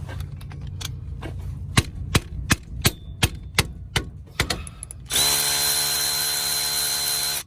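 Sharp ratchet clicks, about three a second, as the 14 mm caliper bolt is worked loose. Then a cordless power tool runs steadily with a high whine for about two seconds and stops suddenly.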